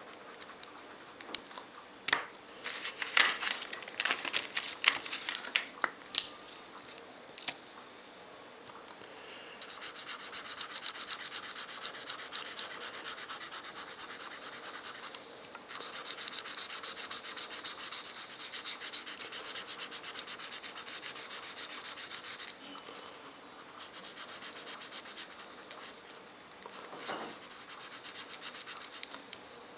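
Felt-tip markers on paper. First come short, quick strokes and taps of a black marker inking lines. Then an orange marker scribbles back and forth in long runs of rapid, scratchy strokes as it colours in an area.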